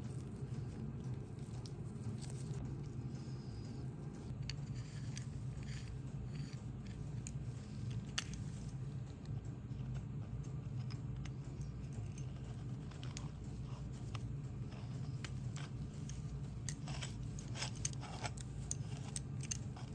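Light clicks and taps of small metal tool parts being handled: circlip pliers at the drive-end bearing of an air screwdriver, then its threaded metal housing sections being fitted and screwed together. The clicks come thicker near the end, over a steady low hum.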